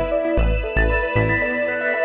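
Background music with a steady beat: deep bass notes about two and a half times a second under sustained melodic tones.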